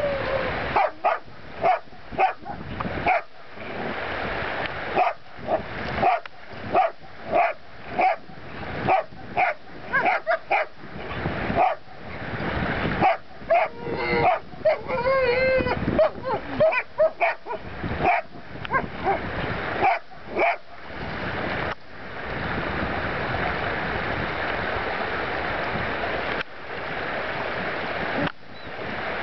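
German shepherd barking repeatedly, about one to two barks a second, with higher yelping, whining calls in the middle of the run. After about 22 seconds the barking stops and only the steady rush of a shallow stream remains.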